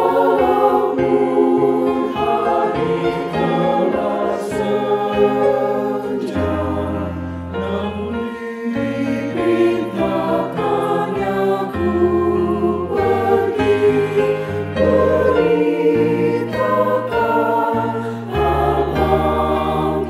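Mixed choir of men's and women's voices singing a hymn in several parts, with long held notes throughout.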